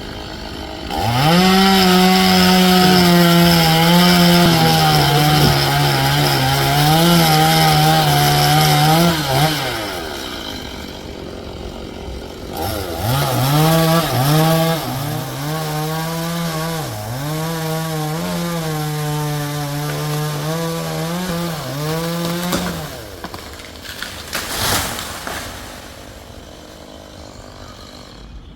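Two-stroke chainsaw cutting wood in two long bouts with a short gap between, its engine note repeatedly sagging and recovering as the chain bites into the cut.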